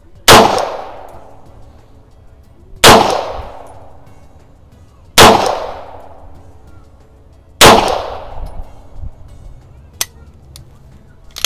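Four 9mm pistol shots from a Beretta 92FS M9A1, fired in a steady string about two and a half seconds apart, each crack trailing off in a short echo.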